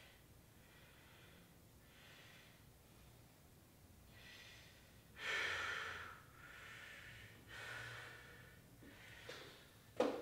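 A man breathing hard just after finishing a set of shoulder exercises: a run of heavy breaths in and out, about one every second or so, the loudest a little over five seconds in. A short knock near the end.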